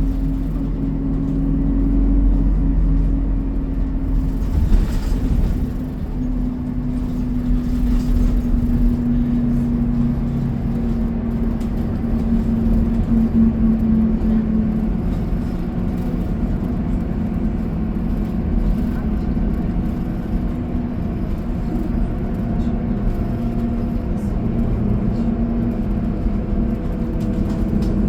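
City bus in motion, heard from inside the cabin: a steady engine and drivetrain drone over road rumble, with a hum that drifts slowly in pitch as the bus changes speed.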